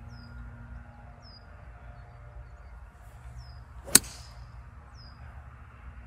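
A golf ball struck off the fairway with a 5-utility hybrid club: one sharp impact about four seconds in. A bird repeats a short falling chirp about every second and a half throughout.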